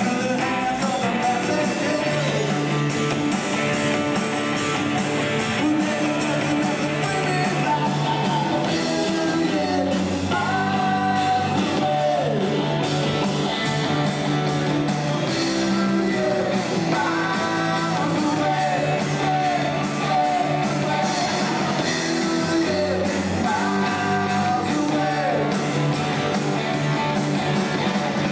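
Live rock band playing: electric guitars and a drum kit, with a singer's voice coming in in phrases.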